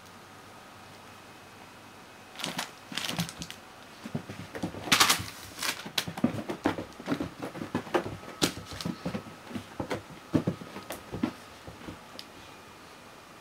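Irregular soft taps, scrapes and rustles of a kitten pouncing and batting at a handheld light-up teaser toy on a carpet. They begin about two seconds in, with the loudest cluster about five seconds in.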